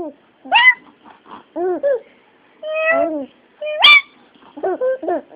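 Kitten meowing over and over: a string of short arching meows, with one longer meow around the middle and a sharp rising one just before a click.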